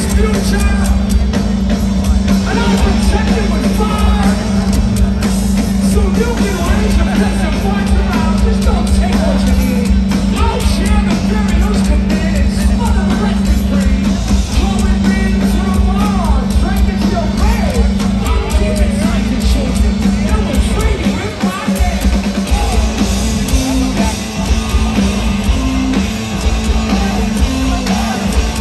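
A live rock band plays at full volume, drums and heavy guitar and bass under a sung and shouted lead vocal, heard from within the crowd at a large concert.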